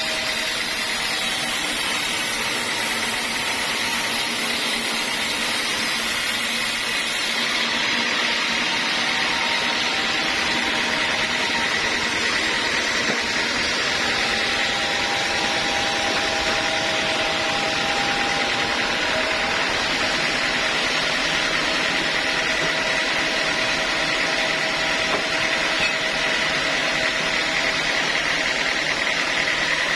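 Sawmill circular saw running steadily, a constant motor-and-blade noise with a steady high whine.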